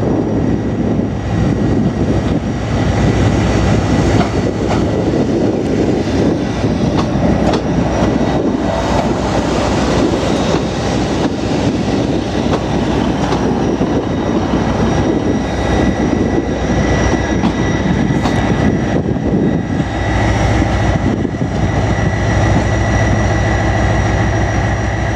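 Class 156 diesel multiple unit running alongside the platform, its underfloor diesel engines running with a steady high whine over the rumble of wheels on the rails. About twenty seconds in, a deeper, steadier diesel engine hum comes up.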